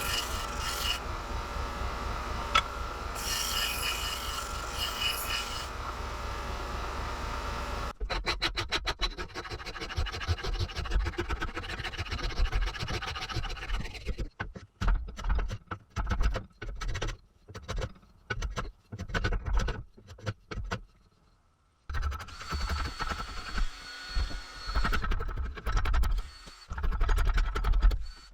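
Wood being shaped by hand for a new gunstock: a steady scraping hiss for the first several seconds, then quick back-and-forth rasping strokes in runs, broken by short pauses.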